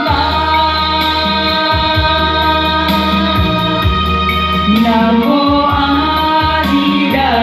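Music: a song's closing bars, singing held on long notes over instrumental accompaniment, moving to a new chord about five seconds in.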